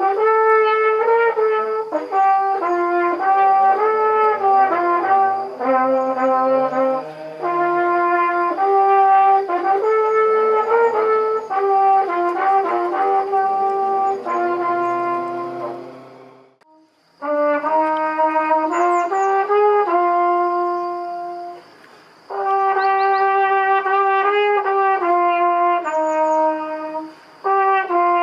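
Flugelhorn playing a melody of held notes. The phrase fades out about sixteen seconds in, and after a second's pause a new phrase begins.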